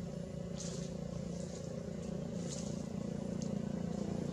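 A motor engine running steadily off-screen, a low hum that grows slowly louder, with a few short high-pitched ticks or chirps over it.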